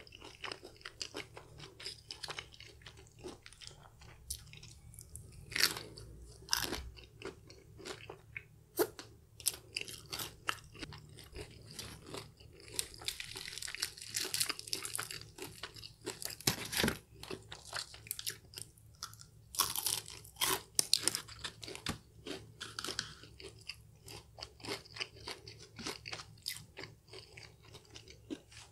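Close-miked chewing and crunching of KFC Hot & Crispy fried chicken, the crisp coating crackling sharply with each bite. There is a dense run of crackling about halfway through as a piece is torn apart by hand.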